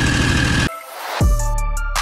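A 670cc Predator V-twin engine running for under a second, then cut off suddenly. Electronic music follows, with a deep bass that slides down in pitch and ticking hi-hats.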